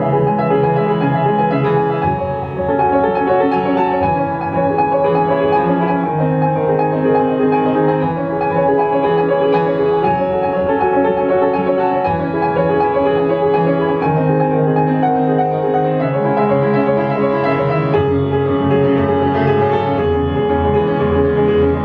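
Grand piano played solo: sustained chords over low bass notes that change about every two seconds, in a steady, flowing pattern.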